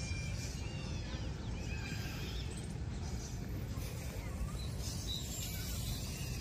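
Steady low rumble of a freight train of flatcars rolling past, with birds chirping over it.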